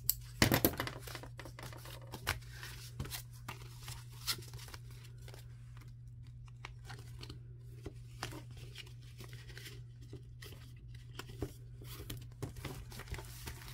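Paper banknotes and clear plastic binder pockets being handled: light rustling and crinkling with scattered small clicks and taps, and a cluster of sharper clicks about half a second in.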